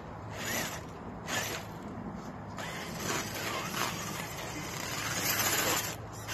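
Electric motor and geared drivetrain of a radio-controlled scale crawler truck whining in short bursts of throttle as it climbs over logs.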